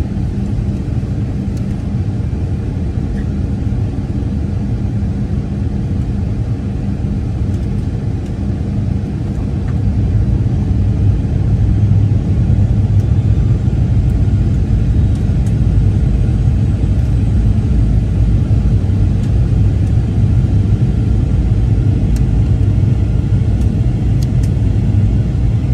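Cabin noise inside a Boeing 737-900ER airliner: a steady low rumble of jet engines and airflow that grows a little louder about ten seconds in.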